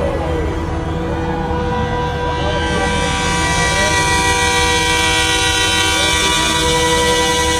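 Semi truck's air horn held as one long, steady chord of several tones, growing louder about three seconds in, over a low engine rumble.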